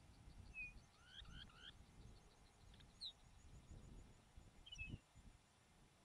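Faint bird calls: a quick run of three rising chirps about a second in and a sharp falling note near the middle, over a thin, rapid high ticking and a low rumbling noise.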